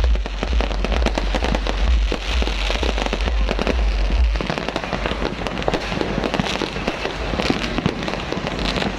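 Fireworks going off in a dense, continuous barrage of bangs and crackles, with a deep rumble underneath that eases about halfway through.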